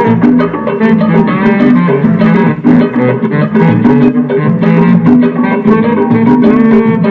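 Recorded music with plucked guitar and bass lines and a steady beat, played loud through a PA sound system.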